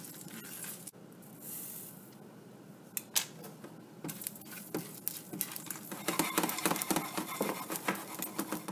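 Whole spices and seeds being dry-roasted in a small nonstick pan and stirred with a spatula: light scraping and rattling clicks, a few scattered at first, then a busier run in the second half.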